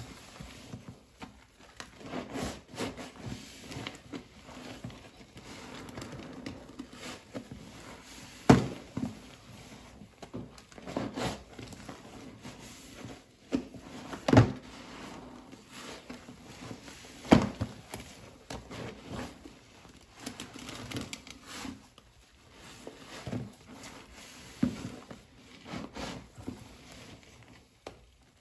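Epoxy sponge soaked in thick soap suds, squeezed and kneaded over and over by rubber-gloved hands in a plastic tub: irregular wet squelches, with a few sharp, louder strokes about eight and a half, fourteen and seventeen seconds in.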